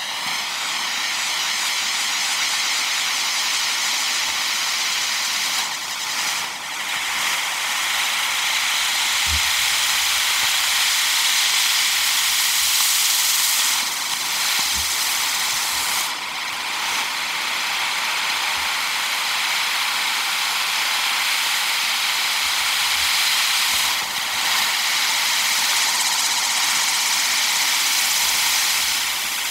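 Six-foot firework sparkle wheel spinning, its spark-fountain drivers hissing steadily as they throw sparks.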